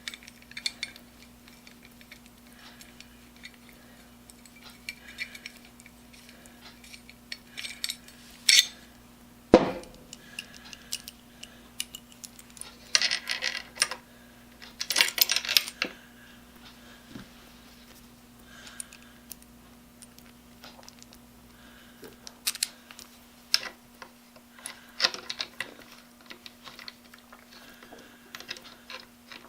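Small metal parts clinking, rattling and scraping in the hands as a cam-lever clamp bolt is tried on a Porter-Cable router's base clamp. There are scattered light clicks, a single sharp knock about ten seconds in, and short bursts of rattling around thirteen and fifteen seconds in, over a faint steady hum.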